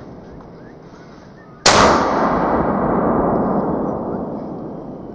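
A single gunshot about one and a half seconds in, fired at a wild boar, its report echoing away through the woods for about three seconds.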